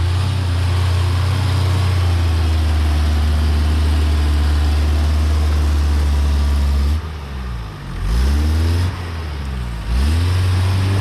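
Off-road 4x4's engine held at high revs for about seven seconds, then easing off and revving up again twice.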